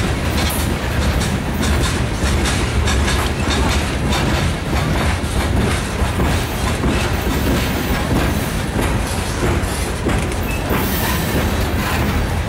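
Loaded coal hopper cars of a long freight train rolling past at steady speed, their steel wheels clacking over rail joints. A loud, continuous rumble is broken by rapid, irregular clicks.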